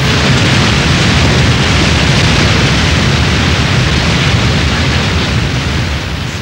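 A loud, steady rushing noise, with no separate blasts, voices or tones in it.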